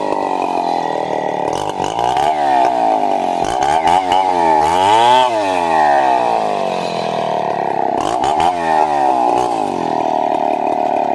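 Chainsaw cutting wood, running at high speed with its engine note dipping and rising again several times, most deeply about five seconds in.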